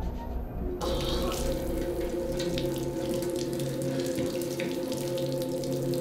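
Water running from a bath tap into a tub, starting abruptly about a second in and flowing steadily, with a steady hum beneath it.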